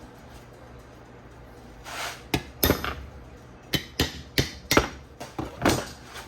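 Hammer blows on metal: about nine sharp knocks over four seconds, starting about two seconds in, some in quick pairs with a short ring, as mounts are knocked loose from an ATV frame.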